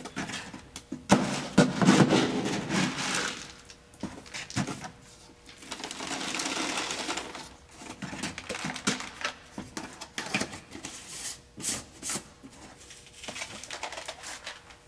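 Dry cat food poured into a carrying container, with rattling and handling knocks. The louder pouring comes about one to three seconds in and a second pour about six seconds in, followed by scattered clicks and knocks.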